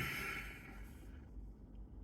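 A woman's sigh: a falling voiced tone that trails off into a breathy exhale, fading away over about the first second.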